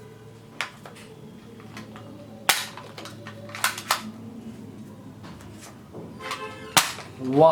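Toy soft-bullet blaster being fired: about five sharp snaps at irregular intervals, the loudest about two and a half seconds in and two close together a second later.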